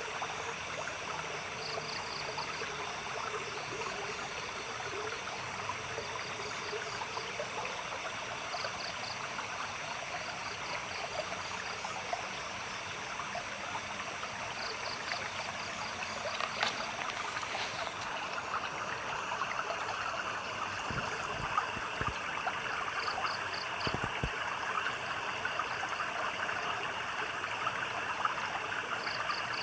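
Stream water running and trickling steadily. Short groups of high, pulsed chirps from a night creature repeat every few seconds.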